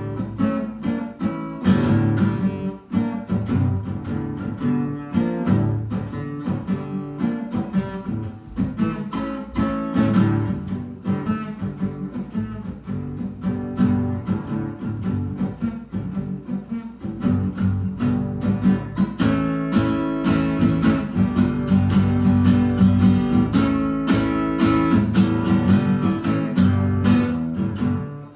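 Acoustic guitar being played: a continuous flow of picked notes and strummed chords.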